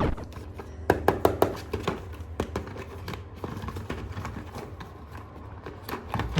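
Hands handling plastic toy pieces and packaging: a string of irregular light clicks and taps, several close together about a second in.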